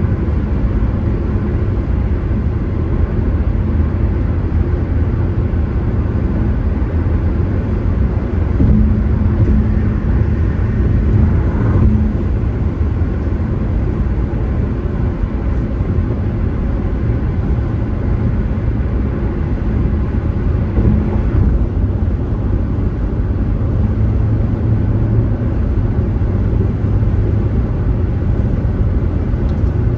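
Steady low rumble of a car driving along the road, tyre and engine noise with no sudden events. A faint hum rises out of it for a few seconds about a third of the way in.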